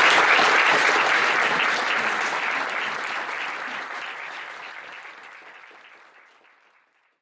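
Seated audience applauding, many hands clapping, fading away over the last few seconds.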